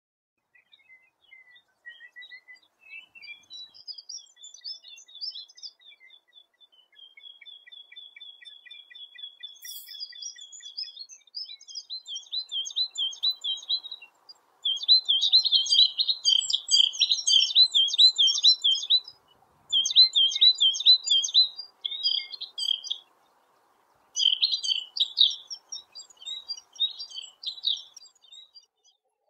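Eurasian penduline tit calling and singing: thin, high calls and trills, faint at first, then loud, busy phrases from about halfway, in several bursts with short breaks.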